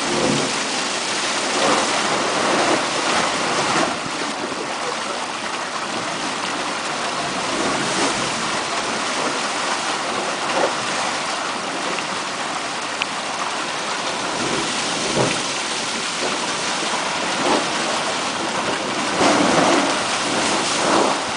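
A steam vent in the rock hissing and rushing steadily, swelling in a few brief surges, the strongest near the end.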